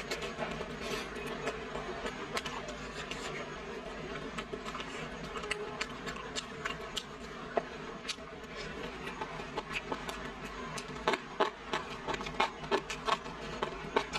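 Close-up chewing of a bite of pan-fried roll: wet mouth clicks and smacks, quickening into a louder, regular run of about two or three clicks a second in the last few seconds.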